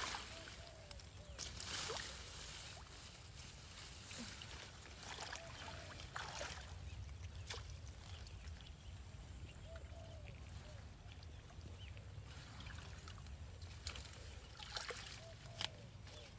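Faint, irregular water splashing and dripping as a mesh cage fish trap is lifted and handled at the edge of a ditch, with some rustling of the grass around it.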